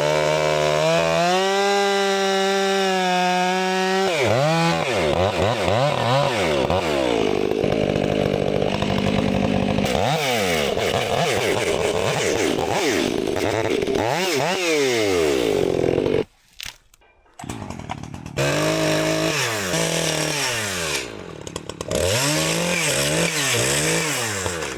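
Two-stroke chainsaw cutting through pine logs: the engine runs at steady high revs, then its pitch repeatedly sags under load and climbs back as the chain bites and frees. The sound breaks off for about two seconds past the middle, then the cutting resumes.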